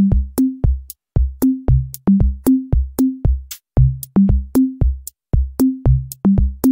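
Electronic music: a drum-machine beat of short, pitched bass thumps, about three a second, stepping between a few notes like a bass line.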